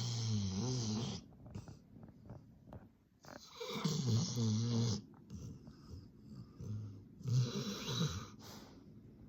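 Black Labrador snoring loudly: three long snores about three and a half seconds apart, each a wavering low buzz over a breathy rush, with fainter breaths between them.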